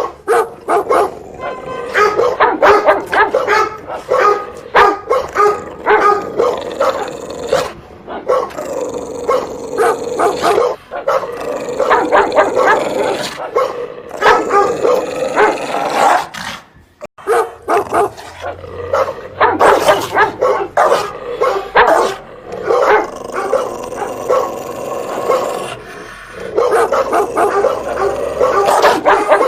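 Dog barking loudly and repeatedly in fast runs of barks, with a short break about halfway through.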